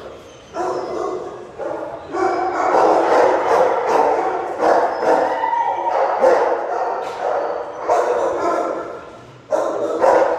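Several shelter dogs barking and yipping in their kennels, overlapping barks in an almost unbroken chorus, with short lulls near the start and about nine seconds in.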